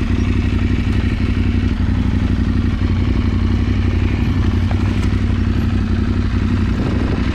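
Motorcycle engine running steadily while riding slowly over rough ground, with a few faint knocks.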